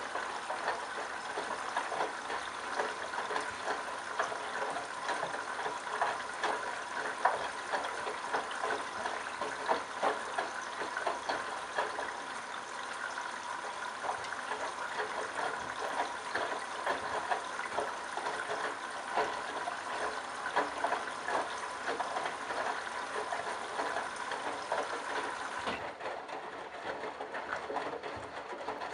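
Candy Bianca washing machine mid-cycle, water rushing and splashing as the drum turns a wet load of towels. The high part of the hiss cuts out suddenly near the end.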